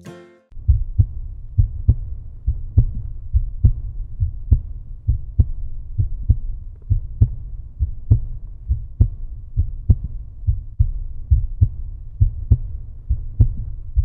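A low, heartbeat-like pulse of deep thuds, a strong beat about once a second with lighter beats between, going on evenly and then cutting off abruptly at the end.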